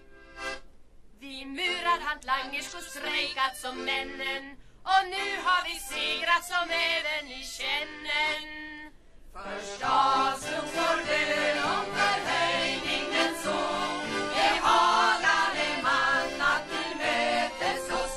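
A choir of mostly women's voices singing a Swedish song in short phrases with brief pauses. From about nine seconds in it becomes a fuller, continuous passage with lower parts underneath.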